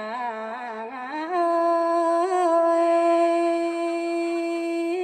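A solo voice singing a slow melody: a few quick ornamented turns, then one long held note from about a second in until near the end.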